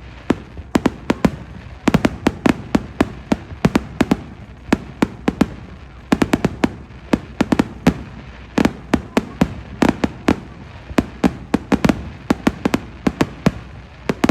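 Fireworks going off: a dense, irregular run of sharp bangs, often several a second, over a steady background rumble.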